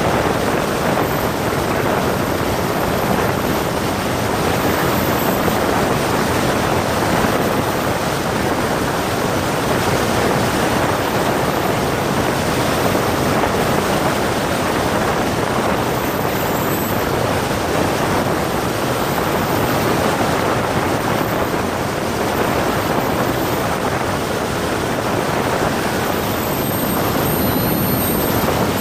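Cessna 172's piston engine and propeller running steadily, with rushing air, as a continuous even drone.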